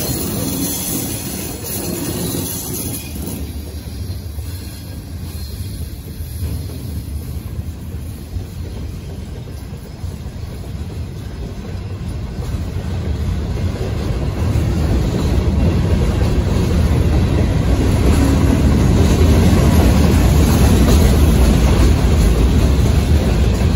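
Providence & Worcester freight train rolling past at close range: a steady rolling rumble of the cars' wheels on the rails, growing louder past the middle.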